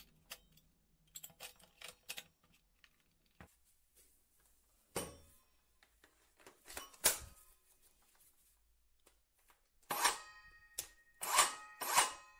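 Handling noise of a Greenworks 24 V cordless circular saw: small clicks as the blade bolt is tightened with a hex key, then scattered knocks and, near the end, several louder clatters with a brief metallic ring as the saw is picked up and turned over.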